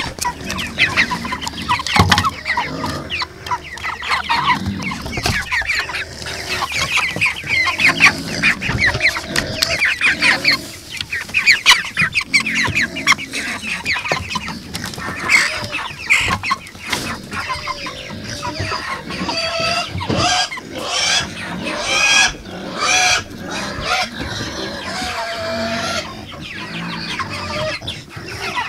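A flock of Cornish Cross meat chickens clucking and calling at close range as they feed, many short overlapping calls, turning to longer, more spaced pitched calls in the second half.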